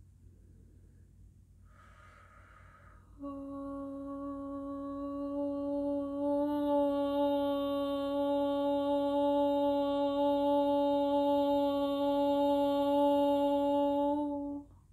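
A woman's voice humming one long, steady note, after a short breath in. About halfway through the note grows louder and brighter, and it stops sharply near the end.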